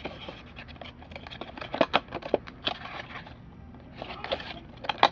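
Crinkling, scraping and tearing of trading-card box packaging being handled and opened, with a run of sharp clicks and crackles about two seconds in.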